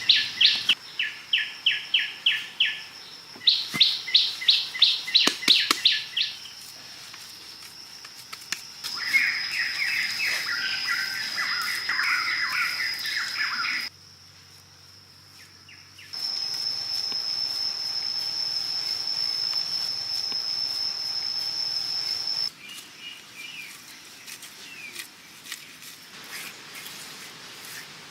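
Outdoor nature sound: birds chirping in quick runs of repeated notes over a steady high-pitched insect buzz. The sound drops out suddenly for about two seconds in the middle and changes abruptly a few times.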